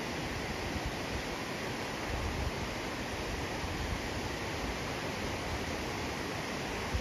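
Steady rush of a river flowing alongside the trail.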